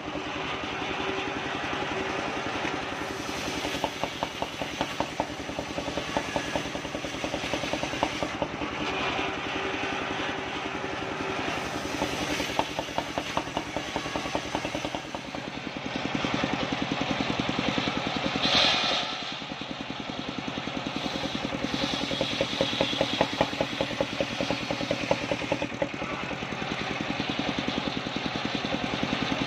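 Engine-driven circular saw bench running with a steady fast beat while its large blade rips a soft kapok log lengthwise. The cutting hiss comes and goes over the engine and is loudest briefly a little past halfway.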